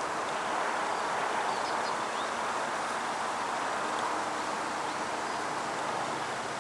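Steady hum of many honeybees buzzing around an open hive while its frames are handled.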